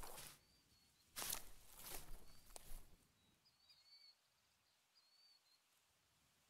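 A few footsteps on grass and brush in the first three seconds, then faint high bird chirps over quiet outdoor air.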